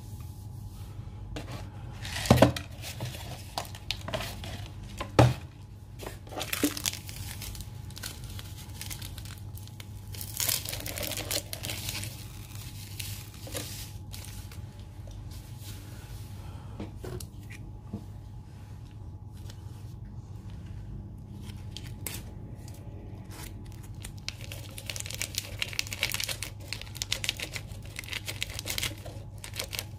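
Plastic seasoning sachets from an instant noodle cup being torn open and crinkled, with two sharp knocks about two and five seconds in and a run of crinkling near the end. A low steady hum sits underneath.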